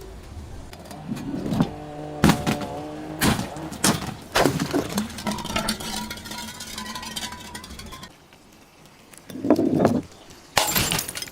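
Glass bottles being smashed: several sharp cracks and clinks of breaking glass, with a loud shattering smash near the end.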